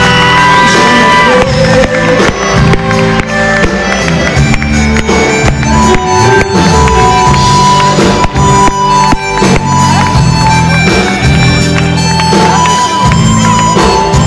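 Live pop band playing loudly: drum kit keeping a steady beat over bass, with a held melody line on top.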